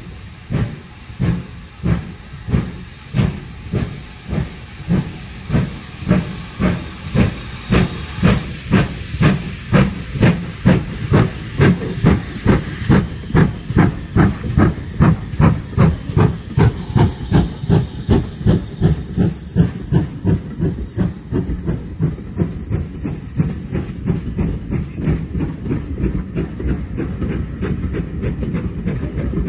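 Steam locomotive passing close by under power: regular exhaust chuffs with steam hissing, growing louder as it comes near. After about twenty seconds the chuffs fade and the coaches roll past with a steady rumble.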